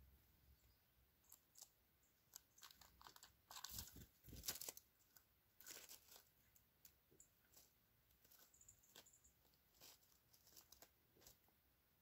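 Faint, irregular crunching and crackling of fallen leaves as a dark-eyed junco hops and scratches through the leaf litter while foraging, loudest about four seconds in.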